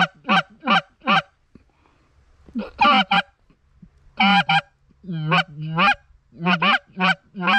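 Canada goose honking: loud, short honks and clucks in quick runs of two to four, with short pauses between the runs.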